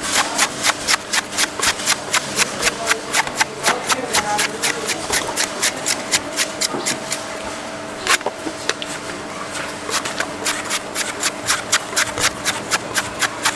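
Rapid, regular knife strokes chopping into a coconut, about four a second, stopping for a few seconds in the middle apart from one harder strike, then starting again. A steady low hum runs underneath.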